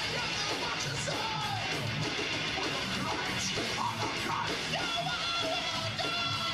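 Heavy metal band playing live: a male singer yells and sings over distorted electric guitars, bass and drums, holding a long high note over the last two seconds.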